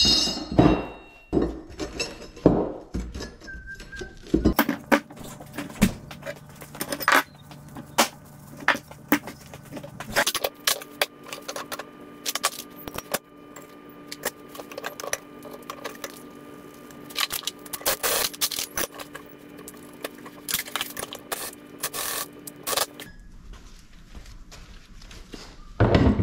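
Irregular metallic clinks, clanks and scrapes as a cut steel chain sprocket's halves and their fittings are handled and fitted around a differential bearing carrier, with a louder clatter near the end.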